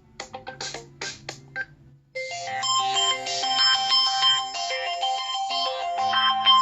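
A T-Mobile Coolpad Rogue phone playing its ringtones. A short, beat-like tone ends about a second and a half in. After a brief pause, a loud, bright electronic melody ringtone starts.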